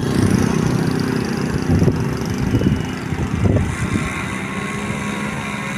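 A bus engine running at idle with a steady low rumble, with a few brief louder surges about two and three and a half seconds in.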